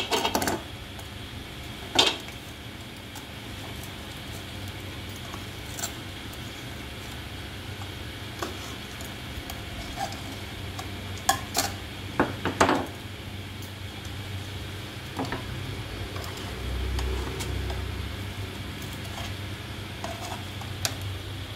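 A metal knife and utensils clinking and knocking against a sandwich maker's plates and a steel plate, a handful of scattered clinks with a cluster of them about halfway through, over a steady low hum.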